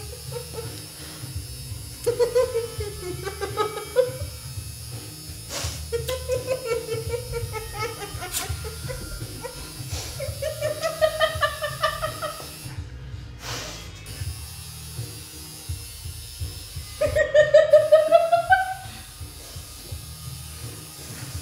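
Several bouts of laughter, pulsing rapidly, with the loudest and highest about three-quarters of the way through, over a steady low electrical hum.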